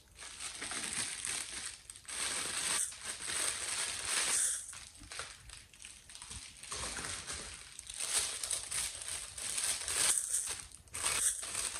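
Clear plastic packaging bags and a bubble-wrap pouch crinkling and rustling as they are handled and unwrapped, in uneven spurts with short pauses.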